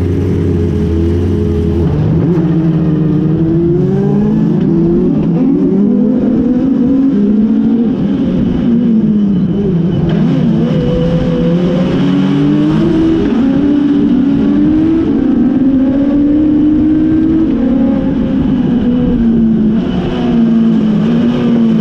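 Legends race car's Yamaha four-cylinder motorcycle engine, heard from inside the cockpit: running steadily for about two seconds, then revving up and pulling away, its pitch rising and dropping again and again as it accelerates and changes gear.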